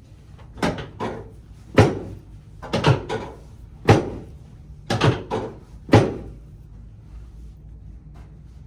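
About ten sharp knocks over six seconds, some in quick pairs, as a chiropractic adjustment is worked on a treatment table.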